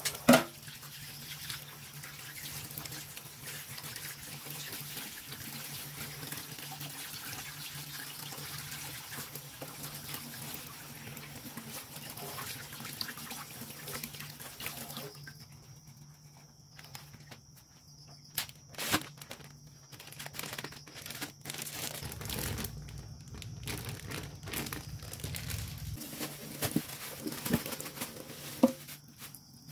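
Tap water running into a sink while fish and shrimp are washed. About halfway through the flow stops, leaving scattered knocks and clicks from handling. A single sharp knock at the very start is the loudest sound.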